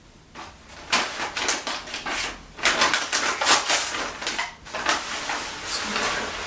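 Brown kraft paper crinkling and rustling as a paper sleeve is pulled up off a potted plant's leaves, starting about a second in as a dense run of uneven crackles.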